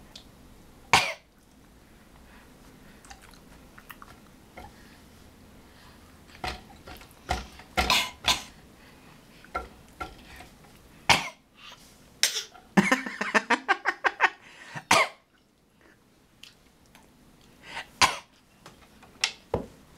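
Young child coughing in short bouts a few seconds apart, with a quick run of coughs about two-thirds through; a small, 'sickly' cough.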